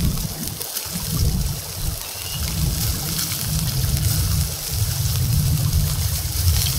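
Beef steak sizzling in a cast-iron skillet over a wood fire: a steady hiss full of fine crackles and pops, over a low rumble.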